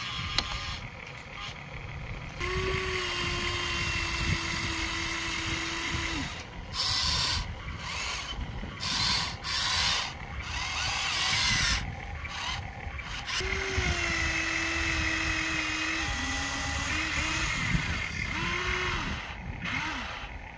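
Small electric motors of a radio-controlled toy excavator whining as its tracks climb it onto a toy truck's flatbed trailer. The whine runs steady for a few seconds at a time, with short rising and falling pitch changes near the end. A rougher, noisier rasp fills the middle stretch.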